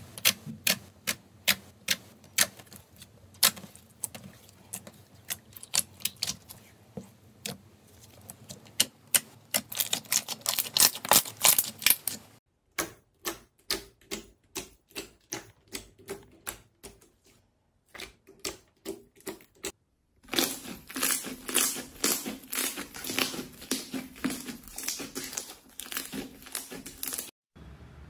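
Crunchy slime being pressed and squeezed, giving sharp crisp clicks and crackles: single clicks a few times a second that thicken into a dense crackle, then after a sudden cut a steady run of clicks about twice a second, then after another cut a dense crackle again.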